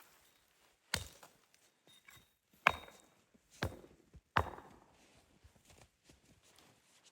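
Wood being chopped with an axe: four sharp blows at an uneven pace, roughly one a second, with a few fainter knocks between them.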